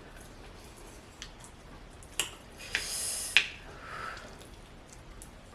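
Close-miked eating sounds: a few sharp mouth clicks and smacks, with a short breathy hiss like a sip or slurp about three seconds in.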